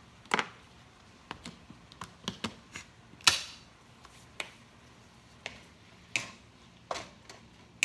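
Scattered sharp clicks and knocks, a dozen or so at uneven spacing, the loudest about three seconds in: kitchen handling at a stovetop, with a wooden spatula knocking against a frying pan as chicken is stirred in the last couple of seconds.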